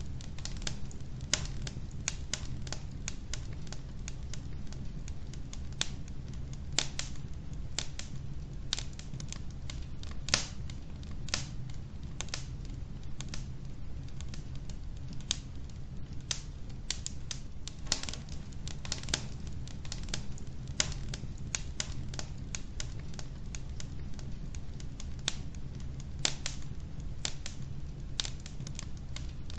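Wood logs burning in a fireplace: irregular sharp crackles and pops, several a second and some louder than others, over a steady low rumble.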